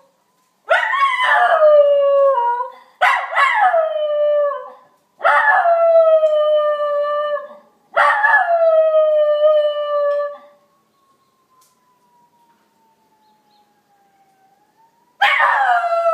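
A Schnauzer howling in response to a fire truck siren: four long howls back to back, each sliding down in pitch and then holding, then a pause and another howl near the end.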